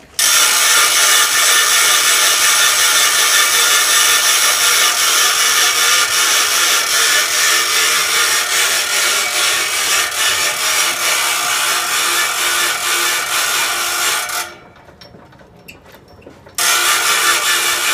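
Homemade gravity generator's wheel and drive mechanism running: a loud mechanical clatter over a steady whine. Near the end it cuts off for about two seconds, then starts again.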